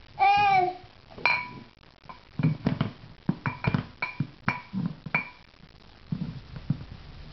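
Dog bowls knocking and clinking on a hard floor as a baby handles and tips them: a string of sharp knocks, several leaving a short ringing tone. Just after the start, the baby gives a brief vocal sound, rising then falling in pitch.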